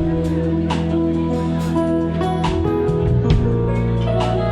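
Live band playing instrumental music, steady and continuous with a regular beat.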